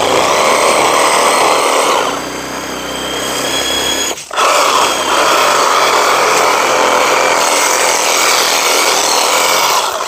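Cordless power tools working into a living tree trunk: a Milwaukee reciprocating saw cutting through bark and wood, with a cordless drill boring into the trunk beside it. The motors run steadily with a high whine, ease off for a couple of seconds and cut out briefly about four seconds in, then run again.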